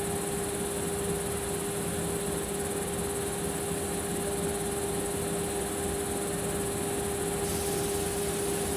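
Suburban electric multiple-unit train standing at the platform, its onboard equipment giving a steady, even hum, with a constant high insect chirring over it. About seven and a half seconds in, a higher hiss joins.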